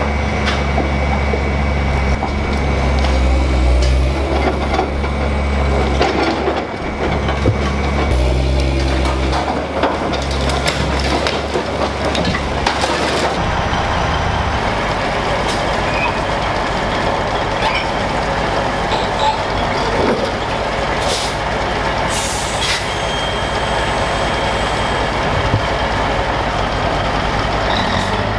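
Heavy diesel engines running steadily: a Komatsu PC300LC hydraulic excavator's engine working, its note shifting, then about halfway through the even running of a Kenworth truck's diesel. Two short air-brake hisses come about two-thirds of the way through.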